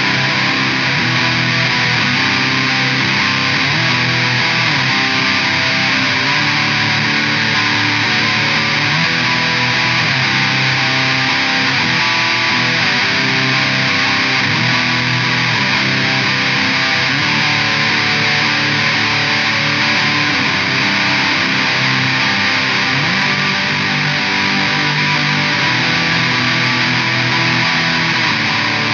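ESP LTD 213 strat-style electric guitar played through a Line 6 POD HD500X multi-effects unit, strumming a continuous chord part at a steady level.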